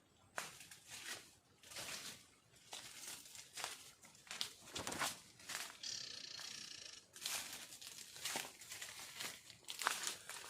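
Repeated crinkling rustles of dry material being disturbed, coming in short irregular bursts, with one buzzy sound lasting about a second near the middle.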